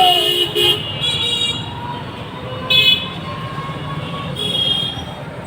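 Busy outdoor market din with brief high-pitched tonal calls rising above it three times.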